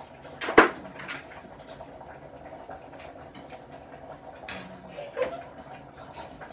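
Kitchen clatter: one sharp clink of kitchenware about half a second in, then a few lighter knocks and clicks.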